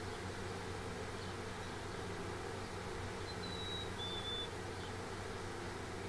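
A songbird gives two clear whistled notes about three seconds in, the second a little lower than the first, over a steady low buzzing hum.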